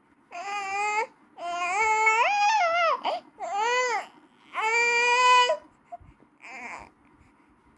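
Baby crying in four high-pitched cries with short breaths between them, the second the longest, each bending up and down in pitch. A short, faint breathy whimper follows near the end.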